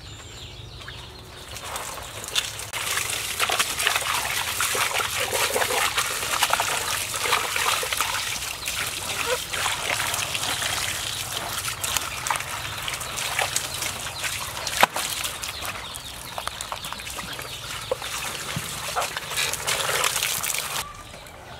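Water spraying from a hose and splashing over a pig carcass and the banana leaves under it as it is washed, a steady hiss that starts about two seconds in and stops shortly before the end. One sharp knock near the middle.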